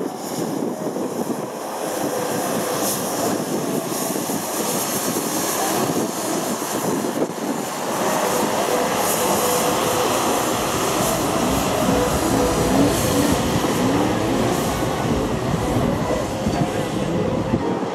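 A John Deere tractor's diesel engine running with its rotary brush sweeping water off a wet track, a steady mechanical rumble and rushing hiss that grows louder as it approaches.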